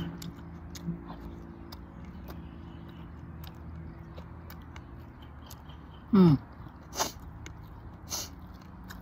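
Quiet chewing and mouth sounds of someone eating spicy seafood and rice. About six seconds in comes a short hum falling in pitch, then a sniff a second later and another shortly after, a runny nose from the chilli heat.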